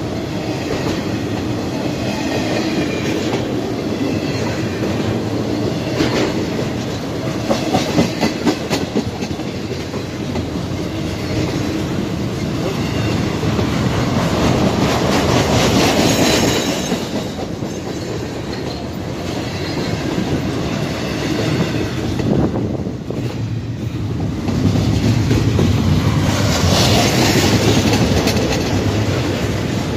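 Intermodal freight cars loaded with containers rolling past: a steady rumble of steel wheels on rail that swells and eases, with a quick run of sharp clacks about eight seconds in.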